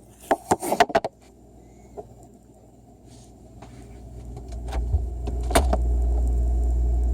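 Refrigerator: several sharp clicks and knocks in the first second, then a low compressor hum that swells over a few seconds and settles into a steady drone.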